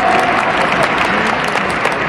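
Crowd applauding in a large stadium, many hands clapping at once.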